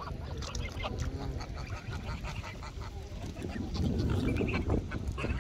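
Ducks and geese calling, many short quacks and honks over a steady low rumble.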